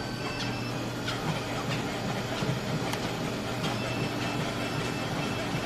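Vehicle running with a steady rumble, scattered clicks and a brief high squeal about a second in, like a train in motion.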